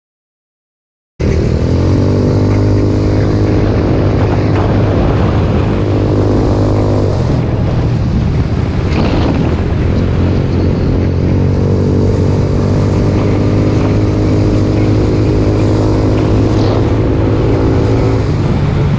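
Jasscol 200cc trike engine running under way, over a steady rush of wind and road noise. It cuts in abruptly about a second in, and its pitch pattern shifts about seven seconds in and again near the end, as the engine speed changes.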